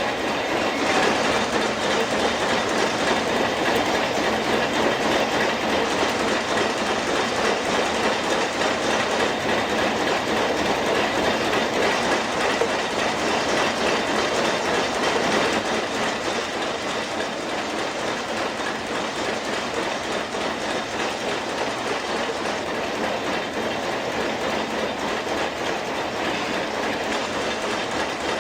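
Steady, dense mechanical clatter, a rapid rattling that runs on without a break and becomes a little quieter about halfway through.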